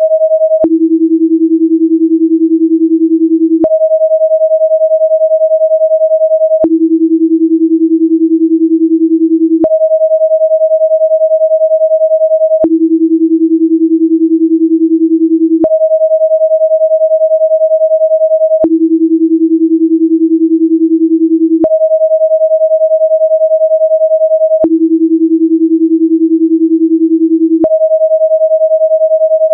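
Steady electronic sine tones that switch every three seconds between a higher and a lower pitch, with a faint click at each switch. They are a binaural-beat track, with tones 10 Hz apart in the left and right channels, meant to make the EEG follow a 10 Hz alpha rhythm.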